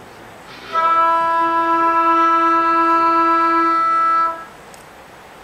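A single wind instrument holding one steady note for about three and a half seconds, starting near the one-second mark and cutting off cleanly.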